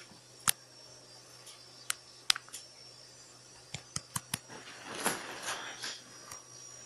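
Faint background with a steady low hum and a scatter of sharp clicks or taps, several in quick succession about four seconds in.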